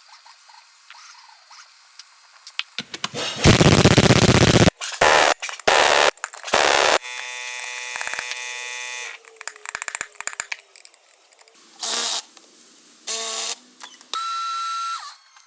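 Workshop power-tool noise: a series of loud, abrupt bursts, the longest about a second, with a steady multi-pitched whir for a couple of seconds in the middle and a few more short bursts near the end.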